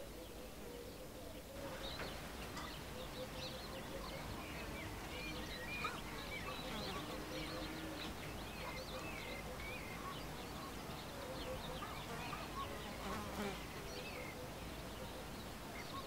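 Faint outdoor ambience: an insect buzzing steadily, with many short chirping calls over it, growing a little fuller about a second and a half in.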